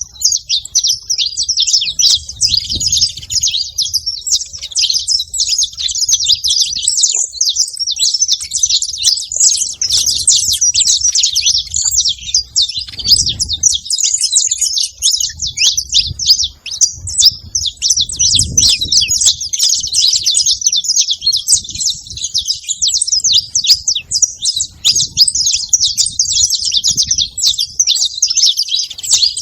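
A pair of saffron finches, male and female, chirping and twittering in a dense, unbroken stream of rapid high notes.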